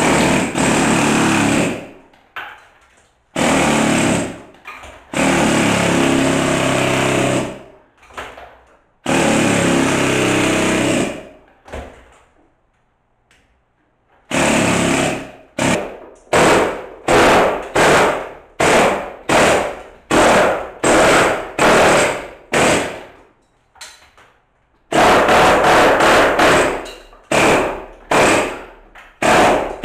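Pneumatic air hammer chiselling a channel into a wall for a cable, run in bursts: four runs of about two seconds each, then a string of short blasts about one and a half a second, another longer run near the end, and more short blasts.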